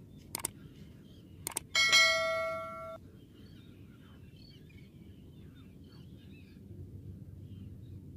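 Two mouse clicks about a second apart, then a single bright bell ding that rings for about a second and fades: the sound effect of a YouTube subscribe-button and notification-bell animation. After it, faint chirping over a low steady background.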